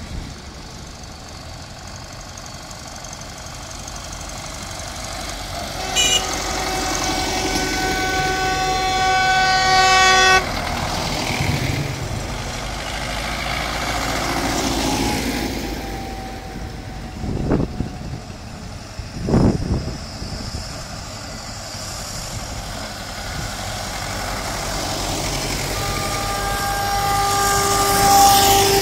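Belarus (MTZ) diesel tractors driving past one after another, their engine noise swelling as each comes close. A horn sounds a long held blast about six seconds in and another near the end, with two short loud bursts in between.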